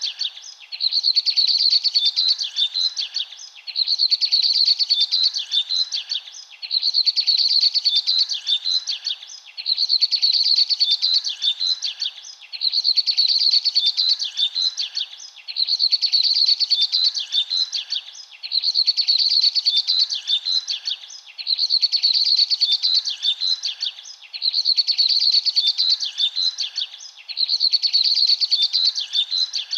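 Small birds chirping in a rapid high twittering trill. Each burst lasts about two seconds and recurs identically about every three seconds, like a looped recording.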